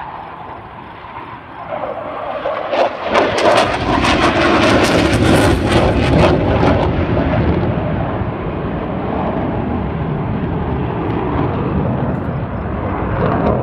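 Blue Angels jets passing low overhead: the jet noise builds over the first few seconds, peaks with a harsh crackle for several seconds, then continues as a steady rumble.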